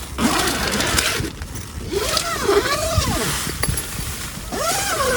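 Strong gusting wind buffeting the microphone, swelling and easing every second or two, with a wavering tone that rises and falls in pitch about three times.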